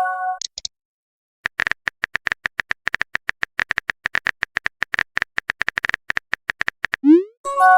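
Rapid typing clicks from a phone or keyboard, about ten a second, for some five seconds. Near the end comes a short rising swoosh and a bright chime of several notes, the sound of a chat message being sent and arriving.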